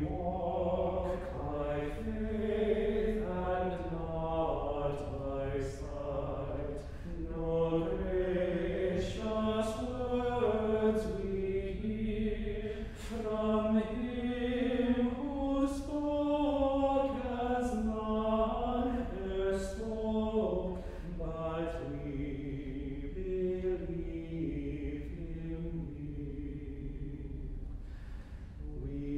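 Small group of men's voices singing unaccompanied plainsong chant, with slow, sustained phrases moving step by step in pitch.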